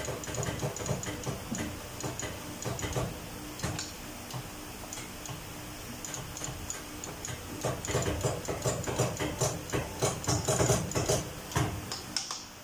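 Sharp clicks and light knocks of a black plastic air-spring end piece being turned and seated by hand in the dies of a crimping machine, scattered at first and coming quickly in the second half, over a faint steady hum.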